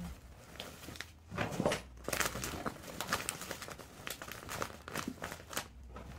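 Irregular rustling and crinkling with small scrapes and taps as items and clothes are pushed and pressed into a packed suitcase. It is busiest about one and a half to two seconds in.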